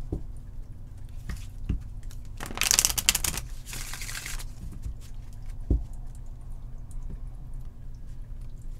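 A deck of tarot cards being shuffled by hand: two rapid rustling bursts of cards riffling against each other a little before halfway, with a few soft taps of the deck on the table before and after.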